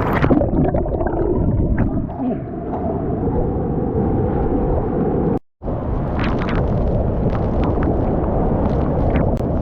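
Waterfall pouring into a plunge pool: a loud, rumbling rush of water close to the microphone. It breaks off abruptly about halfway through and resumes with splashing.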